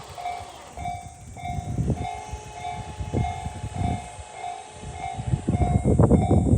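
Electronic level-crossing bell of the slow Tōjō type ringing at an even, slow rate of a little under two dings a second, starting about a second in. A train's rumble and wheel clatter grow loud near the end as it nears the crossing.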